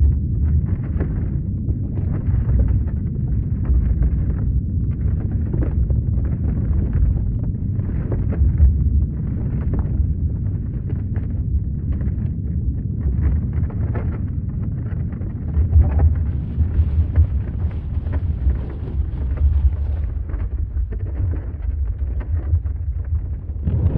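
Deep, continuous earthquake rumble with a gritty crackling texture over it, swelling and easing a little without ever stopping.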